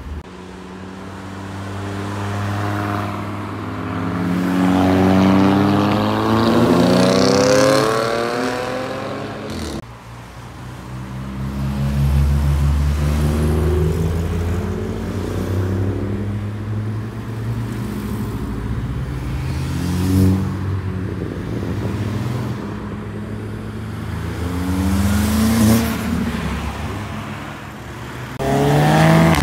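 Cars accelerating hard past one after another, each engine note climbing in pitch as it pulls through the revs, with a sharp click just under ten seconds in.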